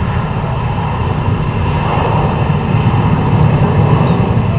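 Jet airliner engines rumbling steadily, growing a little louder toward the end.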